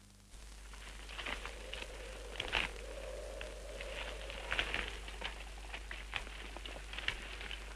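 Crackling surface noise of an old film soundtrack: irregular clicks and pops over a steady low hum and hiss, starting abruptly just after the beginning.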